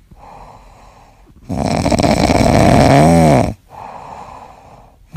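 Sleeping cat snoring: a quiet breath, then one loud snore about a second and a half in that lasts about two seconds and ends with a short rising-and-falling pitched note, then another quiet breath.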